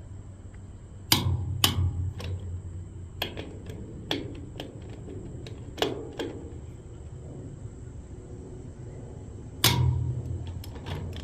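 Click-type torque wrench clicking off as the trailer wheel's fasteners are tightened to 85 foot-pounds, with metal knocks from the wrench and socket between clicks. The sharp clicks come irregularly, and the loudest fall about a second in and near the end.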